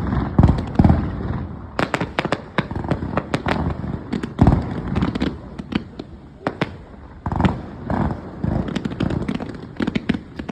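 Fireworks going off in quick succession: deep booms of bursting shells with their echoes, among many sharp crackling pops, the loudest booms just after the start, about four and a half seconds in and about seven and a half seconds in.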